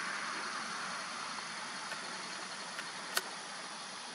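Steady outdoor background noise with no distinct source, and a single sharp click about three seconds in.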